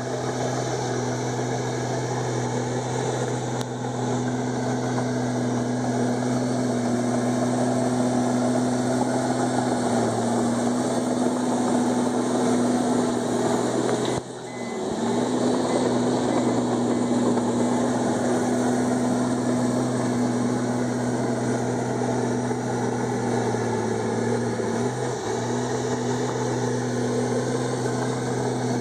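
Komatsu D51EX bulldozer's diesel engine running steadily, its pitch sagging slightly a few times, with a short drop in loudness about halfway through.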